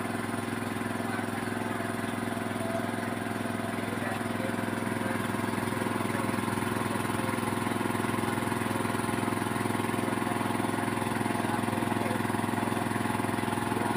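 An engine running steadily at a constant speed, a little louder in the second half.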